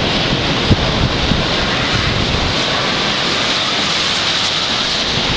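Strong hurricane wind blowing, a steady loud rush with low rumbling where it buffets the microphone.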